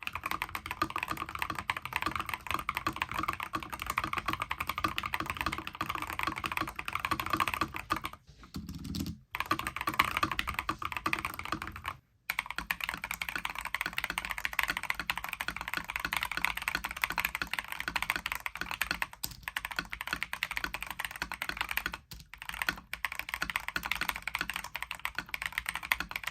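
Steady typing on an EPOMAKER TH80 Pro mechanical keyboard with clone Holy Panda tactile switches, tape-modded and weighted with pennies inside. The keystrokes clatter continuously, with a short lull about eight seconds in and a brief break about twelve seconds in, after which the typing sounds less deep.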